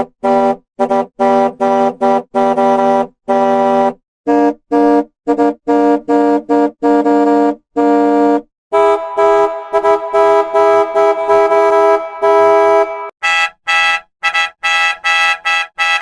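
Bus air horn sounding in a series of blasts of varying length and pitch: short chopped honks at first, one longer held blast about nine seconds in, then quicker, higher-pitched honks near the end.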